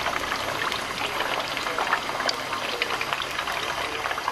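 Tofu triangles deep-frying in hot oil in a wok: a steady, dense sizzle and crackle of bubbling oil.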